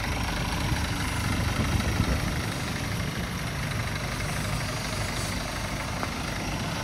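Scania R450 tractor unit's diesel engine idling steadily, its low rumble weakening about two and a half seconds in.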